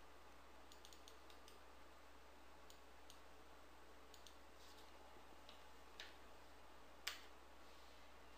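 Faint, scattered clicks of a computer mouse and keyboard against near silence, with two sharper clicks about six and seven seconds in.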